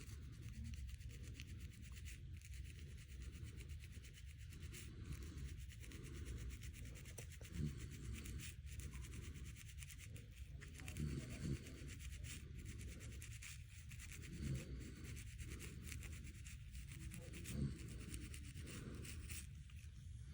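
Fingernails scratching a scalp, a continuous quiet rasping rub, with a snore swelling up about every three seconds.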